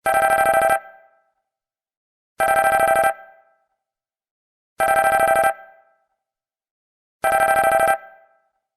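Samsung mobile phone ringtone: an electronic ring with a fast flutter, sounding in short bursts of under a second, four times about two and a half seconds apart.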